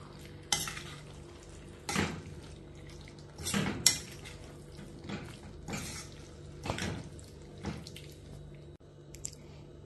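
A spatula stirring thick, wet aviyal in a stainless-steel kadai, scraping and clinking against the pan about six times, roughly once a second.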